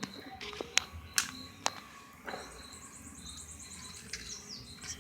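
Outdoor insect and bird calls: a steady high insect drone with a fast, even trill partway through, and three or four sharp clicks or cracks in the first two seconds.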